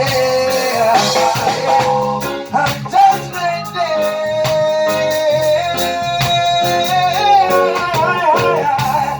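Reggae band playing live over a steady drum and bass groove. A lead melody line holds and bends long notes.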